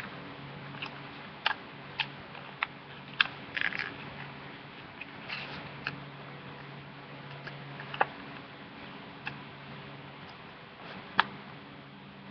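Sheet of paper being folded and creased by hand: scattered crinkles and sharp taps at irregular intervals, over a steady low hum.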